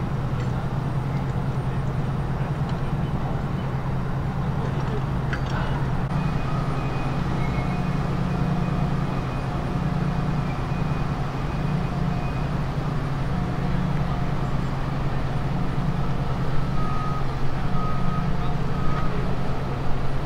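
Heavy vehicle engine running steadily at idle, with electronic beeping tones from about six seconds in that turn into short repeated reversing-alarm beeps near the end.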